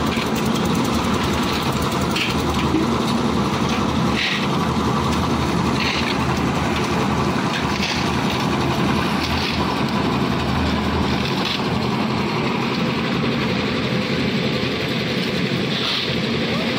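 Concrete mixer machine's engine running steadily under load, with a few short sharper sounds over it. Its deep rumble drops away about eleven seconds in, leaving a lighter, steady engine sound.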